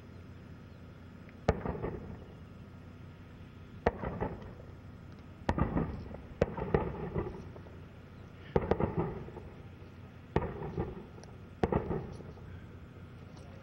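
A series of distant explosive detonations: about seven sharp bangs a second or two apart, each followed by a short rolling echo.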